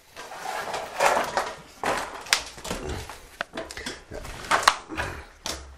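Handling noise as a wooden window sash is carried and lifted into its frame: irregular knocks, bumps and scrapes, with a few sharper knocks in the second half.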